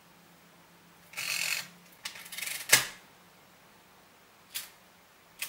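Monroe-style hand-operated full-keyboard mechanical calculator at work. Its gear mechanism rattles twice briefly and ends in one sharp clack, then two of its keys click singly near the end.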